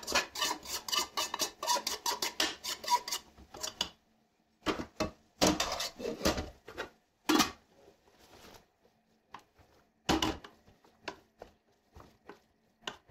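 Metal spoon scraping and clinking against a metal cooking pan, quickly and repeatedly for the first few seconds as fried bitter gourd is scraped out. After that come scattered single knocks and scrapes of spoon on pot, with short silences between them.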